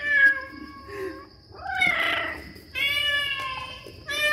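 Recorded cat meows played from a speaker hidden inside a box: a string of separate meows about a second apart.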